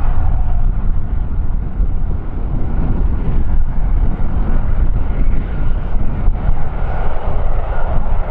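Strong gusting wind buffeting the microphone: a loud, uneven low rumble.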